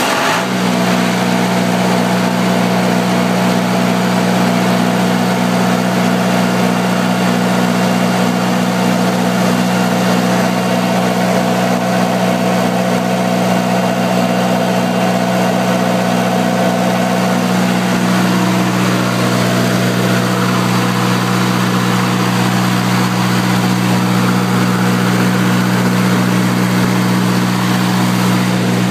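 Kohler generator's John Deere diesel engine running at a steady speed just after starting, its block pre-warmed to operating temperature by a new block heater.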